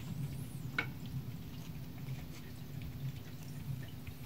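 Steady low indoor hum, with one sharp click a little under a second in and a few faint light ticks.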